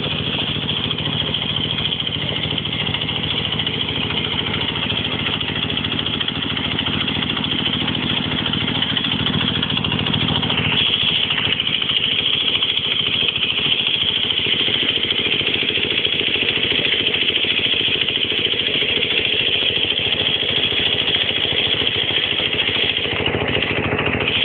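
Small stationary engine of a well-drilling rig running steadily at constant speed, driving the rig through a belt and pulley.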